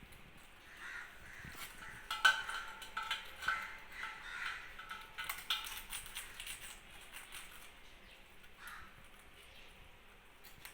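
Parrots calling in a run of short squawks, bunched between about two and six seconds in, with one more call near the end.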